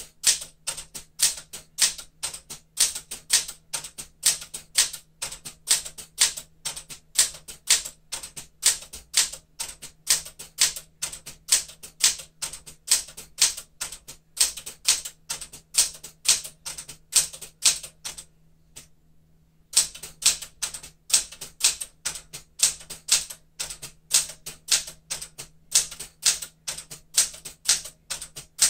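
1975 Smith-Corona Galaxie Twelve manual typewriter typing a character test: typebars striking the platen in a steady run of keystrokes, about three a second, with a short pause about two-thirds of the way through.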